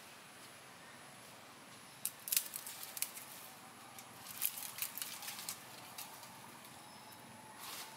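Dry leaf litter crackling and rustling in short bursts of sharp clicks, mostly between about two and five and a half seconds in, with one more near the end, over a faint steady forest hiss.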